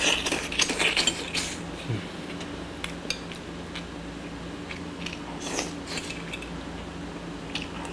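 Steel knife and fork clinking and scraping against a ceramic plate as food is cut, a cluster of clinks in the first second and a half and scattered single clinks after, over a steady low hum.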